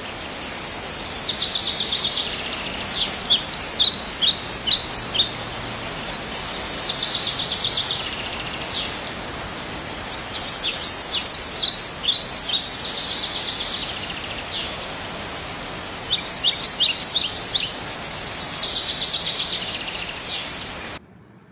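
Songbird singing a repeated two-part phrase, a buzzy descending trill followed by a quick run of sharp high notes, about every six seconds; the sound cuts off suddenly near the end.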